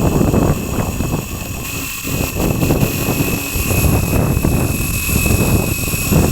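A multirotor fishing drone's propellers whine steadily, over a rough low rumble.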